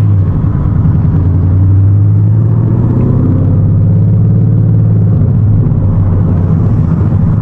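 Ford Mustang GT's 5.0 V8 with a loud dump exhaust, heard from inside the cabin, running at a steady low engine speed with a deep drone.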